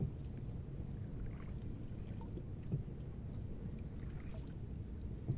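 Gillnet being paid out by hand over the side of a boat into the river: small splashes and drips of water over a steady low rumble, with a few soft knocks against the boat.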